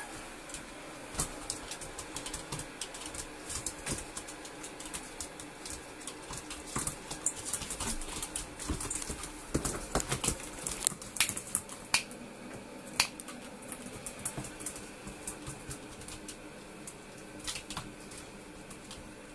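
Dogs' claws clicking and scrabbling on a hard tiled floor as puppies move about: a run of irregular sharp clicks, busiest around the middle.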